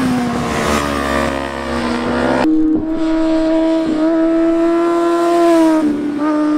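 Sport motorcycle engines running hard through a curve. The note sags slightly at first, then changes abruptly about two and a half seconds in to a steady, higher note that rises a little partway through.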